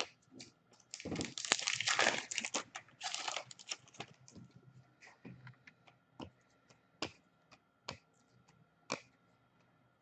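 A foil hockey card pack wrapper crinkling and tearing open for about two seconds, then cards flicked through one at a time: a sharp click about once a second.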